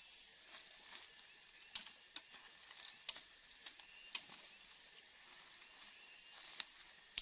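Scattered sharp snaps and crackles of twigs and dry leaf litter as someone moves through forest undergrowth gathering sticks, about six in all, over a steady high forest hiss.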